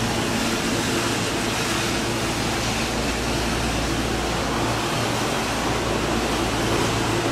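Y000 series electric train beside the platform, giving a steady hiss of air-conditioning and onboard equipment over a low, even hum. No rising or falling inverter tone can be picked out.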